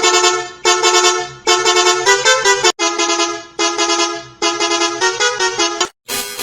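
Multi-tone bus horn sounding in a run of short honks, about six in under six seconds. A few honks step through two or three pitches like a musical horn. After a brief gap near the end, a different horn starts.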